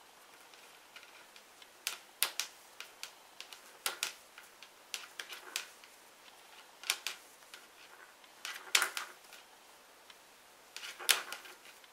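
Scattered light clicks and taps from a metal circular knitting needle as stitches are cast onto it by hand, coming irregularly, sometimes in close pairs.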